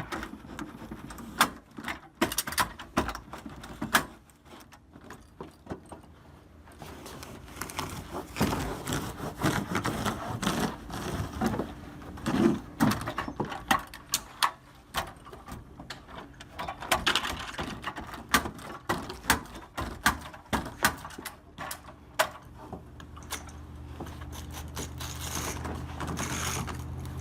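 Irregular clicks, taps and knocks of carpet-laying work with hand tools. A low steady hum comes in about three quarters of the way through.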